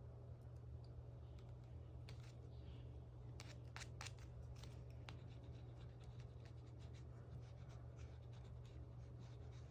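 Faint, scattered small clicks and rustles of paper and stationery being handled while decorating a diary, over a steady low hum.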